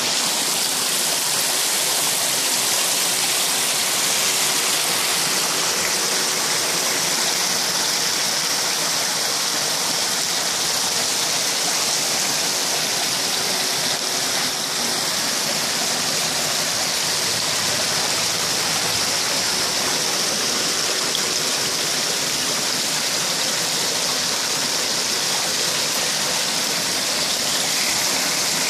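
Water pouring from pipe outlets and splashing steadily into a koi pond, churning the surface into bubbles that oxygenate the water.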